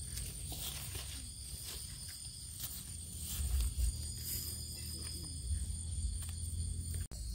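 Forest ambience: a steady high drone of insects, with low rumble and scattered rustles and steps of someone moving through the undergrowth close to the microphone.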